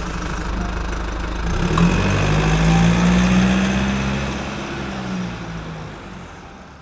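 An engine running, rising in pitch once as it revs about two seconds in, then settling and fading away toward the end.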